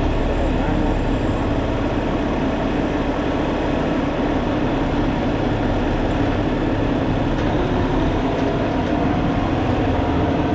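Diesel semi-truck tractor towing a line of piggybacked trucks: steady engine and road noise heard through the open cab window, with the engine note rising slightly in the second half.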